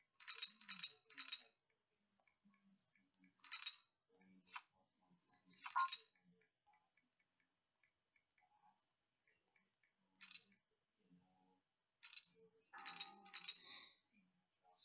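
Online poker client sound effects: short clinks of poker chips as the pot is pushed and the next hand's blinds and cards go out. There are three in quick succession at the start, single ones every few seconds, and another quick cluster near the end.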